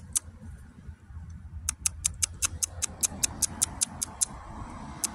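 A rapid, very even run of sharp, high clicks, about six a second, lasting about two and a half seconds from a little before the middle, with a couple of single clicks at the start. A low rumble runs underneath.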